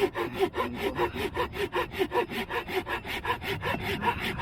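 Japanese-style mini folding pull saw cutting through a wooden stick in quick, even strokes, about four a second.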